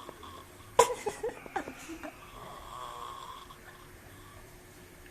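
A person snoring: a sudden loud snort about a second in, then a few shorter rasps, easing into a softer drawn-out breath.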